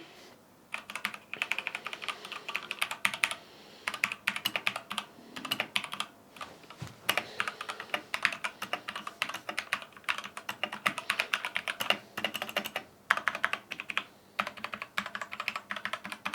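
Typing on an Xtrfy K4 TKL mechanical keyboard with red switches: fast runs of key clicks broken by short pauses, not too loud.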